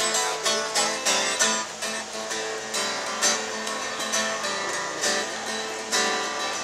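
Acoustic guitar strummed in a steady rhythm, played solo with no singing over it.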